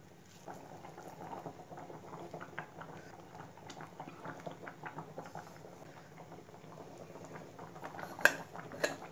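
Tamarind kulambu boiling hard in a pot on high heat, bubbling and popping as lentil balls are dropped in. Two sharper clinks come near the end.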